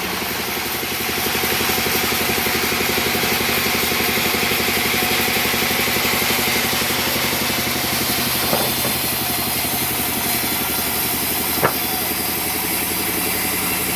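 A sawmill's engine running steadily with a fast, even pulse. Two brief sharp knocks cut through it, one past halfway and one near the end.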